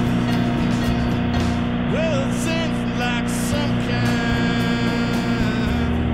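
Instrumental break of a rock song: a lead line bending and sliding between notes over a steady full-band backing with strong bass.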